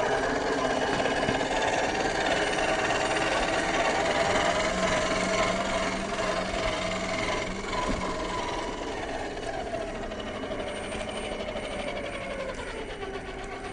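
Electric motor and geared drivetrain of a 1/10 scale RC Unimog 406 truck whining while driving off-road. The pitch holds steady for the first half, then falls in the second half as the truck slows.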